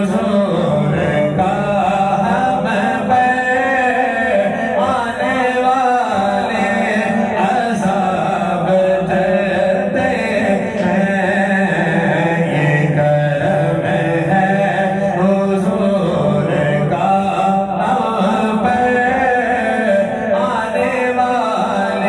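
Men's voices in unaccompanied devotional chanting: a lead voice sings a naat melody over a steady low hum held by the group.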